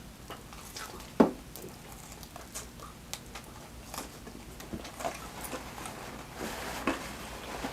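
Close-miked eating sounds: chewing and wet mouth smacks in irregular short clicks, the sharpest about a second in.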